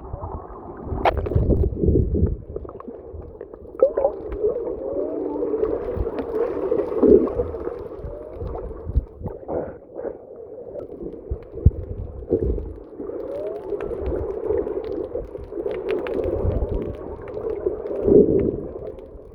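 Humpback whale song heard underwater: a series of moaning calls that slide up and down in pitch, over gurgling water noise and low knocks against the camera housing.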